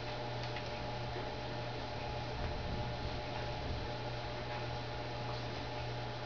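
Steady low electrical hum over even hiss, with a couple of faint clicks.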